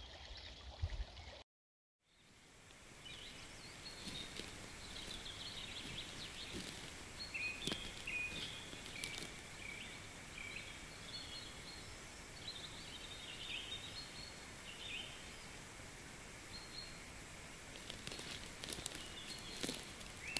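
Small birds singing in the open, a string of short chirps and trills over a steady outdoor hiss, with a few light clicks near the end.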